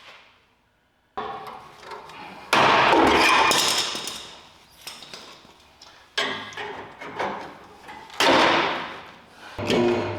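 About five loud, separate bangs, each dying away over a second or so, typical of blows or metal parts striking during work on a truck's cab mounts.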